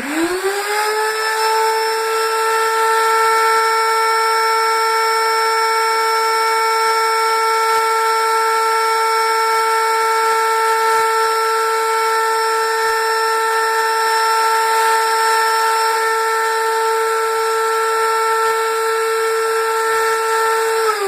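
Household vacuum cleaner switched on: its motor whine climbs in pitch as it spins up, then runs at a steady, loud high whine with rushing air, and starts to wind down in pitch as it is switched off at the very end.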